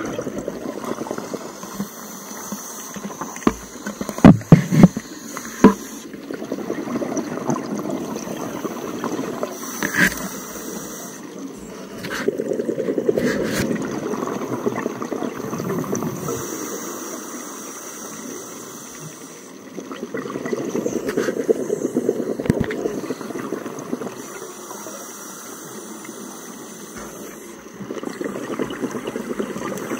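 Scuba regulator breathing heard underwater: exhaled bubbles gurgle out in surges about every eight seconds. A few sharp knocks come about four to six seconds in.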